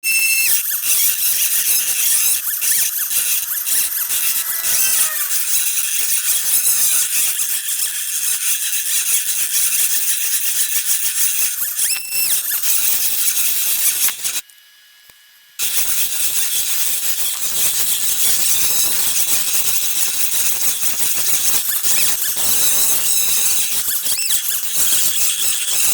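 Home-made CNC machine's spindle motor running at high speed as its bit engraves thermocol, a loud high-pitched whine with hiss. It briefly drops out a little past halfway.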